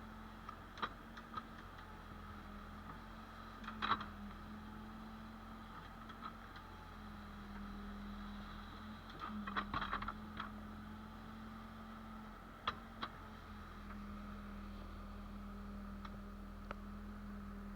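Case 580L backhoe loader's diesel engine running steadily with a low hum that shifts slightly in pitch now and then. Scattered sharp clanks and knocks sound over it, loudest about four seconds in and in a cluster near ten seconds.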